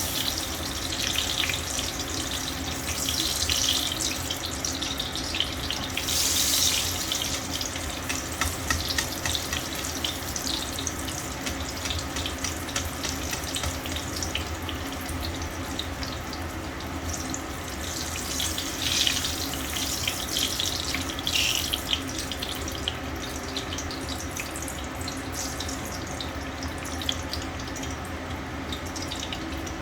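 Water running from a kitchen tap into a sink, the splashing swelling louder now and then, over a steady low hum.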